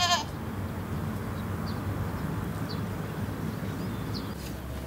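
The tail of a goat's bleat right at the start, then steady outdoor background noise with a low hum and a few faint short chirps.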